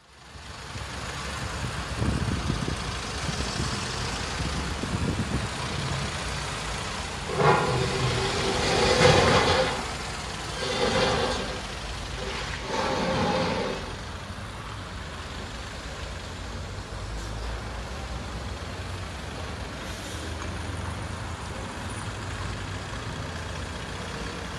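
Box truck's engine running with a steady low rumble, broken by three loud surges of sound near the middle.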